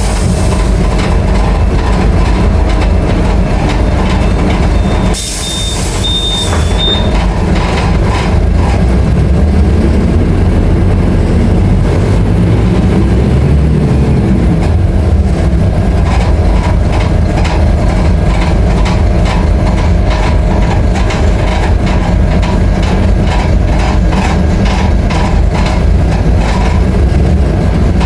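Scania K310IA articulated bus's diesel engine running under way, its pitch rising and falling through gear changes in the middle. About five seconds in comes a brief hiss of air with a short high beep.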